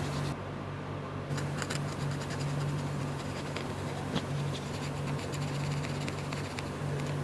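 Scratching and small clicks of hand tools working on a phone's circuit board, over a steady low hum.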